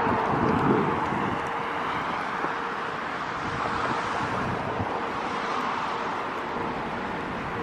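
Steady vehicle noise with a faint steady hum, and wind buffeting the microphone.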